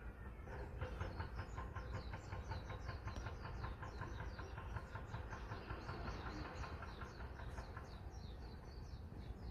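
Fishing boat engine chugging in a fast, even rhythm over a steady low rumble, with small birds chirping high above it.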